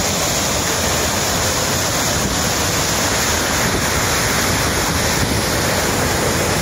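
Dam outlet discharge: a powerful jet of water gushing out of a concrete outlet tunnel and crashing into the churning basin below, a loud, steady rush of white water.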